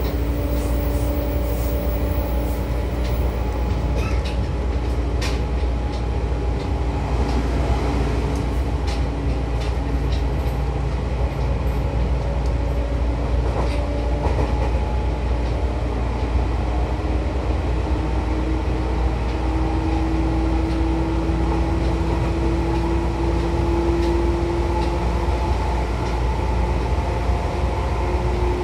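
Seibu 2000 series electric train running, with steady rumbling noise and a held motor tone that slowly rises in pitch through the second half. A few sharp clicks come in the first third.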